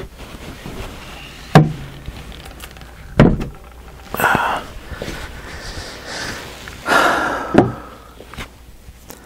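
A heavy cast-iron bench-mill casting is handled and tipped onto its end on a wooden workbench. There are three sharp knocks, about one and a half, three and seven and a half seconds in, and two longer scraping, shuffling noises in between.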